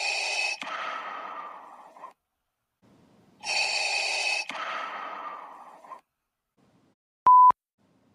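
Darth Vader's mechanical respirator breathing as a sound effect: two slow cycles, each a hissing inhale followed by a longer fading exhale. Near the end comes a short, loud beep at one steady pitch.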